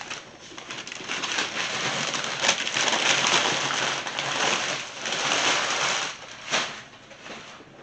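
Packaging being unwrapped by hand: a long stretch of crinkling and rustling, with one sharp louder crackle about six and a half seconds in.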